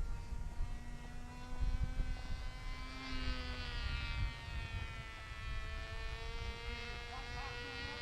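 The small motor of a radio-controlled powered glider, a steady high buzz in the air whose pitch shifts slightly about three to four seconds in, with wind gusting on the microphone.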